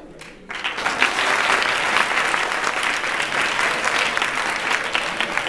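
Audience applauding in a large hall, starting about half a second in after a brief lull and holding steady.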